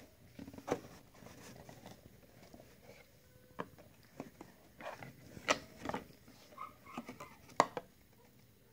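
Cardboard box and packaging handled by hand, with scattered light knocks, taps and rustles; the sharpest knocks come about five and a half and seven and a half seconds in.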